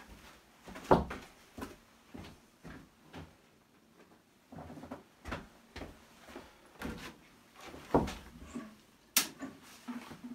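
Scattered knocks and thumps of someone moving about and handling things around a car, the loudest about a second in and another near 8 seconds, then a single sharp click shortly before the end.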